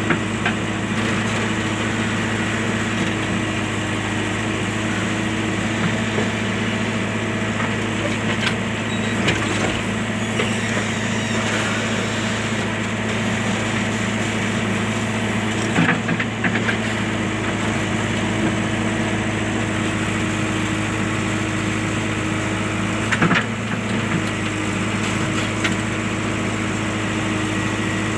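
JCB machine's diesel engine running steadily at idle, with a few short knocks spread through.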